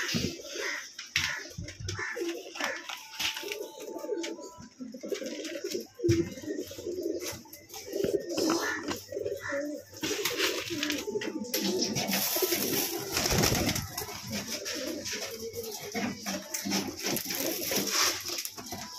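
Domestic pigeons cooing steadily, several birds at once, with scattered knocks and rustling throughout.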